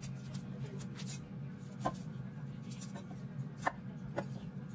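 A Chinese cleaver cutting cauliflower into florets on a wooden cutting board: three sharp knocks of the blade on the board, about two seconds in and twice near the end, with quieter cutting and crunching between them, over a steady low hum.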